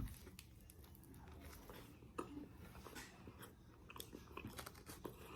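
Faint chewing and biting of food close to the microphone, a scatter of small irregular clicks and mouth sounds.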